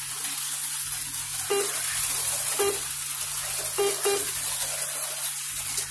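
HO-scale slot cars running on the track: a steady high hiss and whir from their small electric motors and pickup shoes on the rails.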